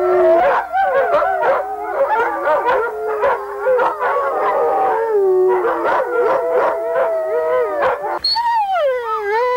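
A chorus of sled dogs howling together: many overlapping howls rising and falling, with short yelps mixed in. Near the end the chorus thins to a single higher howl wavering up and down.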